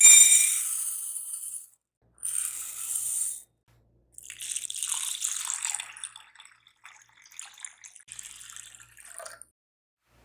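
Water running from a kitchen tap into a sink, turned on and off in three spells, the last one longer and uneven.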